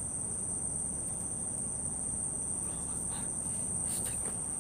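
Crickets chirring in a steady, high-pitched trill that runs unbroken.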